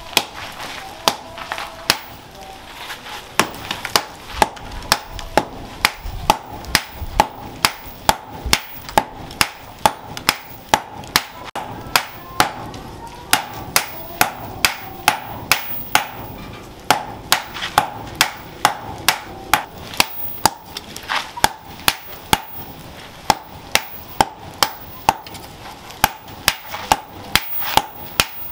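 A striker's hammer pounding a red-hot leaf-spring blade on a post anvil, steady blows about two a second, each with a metallic ring.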